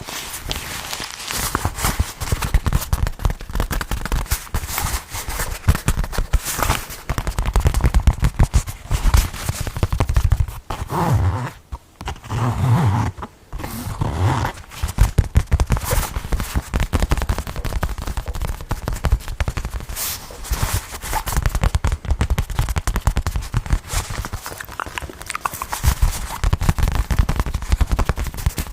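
Fast ASMR tapping close to the microphone: many quick, dense taps, with a short change in texture around the middle.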